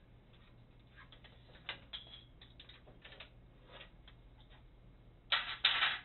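Light metal clicks and taps as a pin shovel is worked loose from the pinsetter's slack elevator chain, then two short, louder clatters close together near the end.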